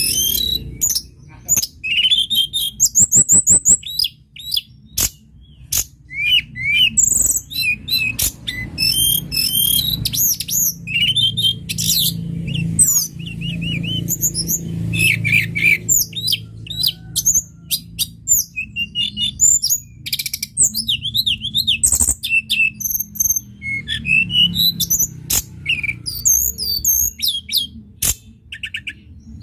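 Tledekan gunung songbird singing a fast, varied run of high chirps, quick sweeping notes and rattling trills, with hardly a pause, over a low steady hum.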